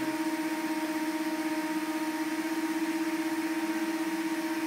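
Steady, even hum with one strong low tone and fainter higher tones over a hiss, from a materials testing machine pressing down on a balsa wood truss bridge during a load test.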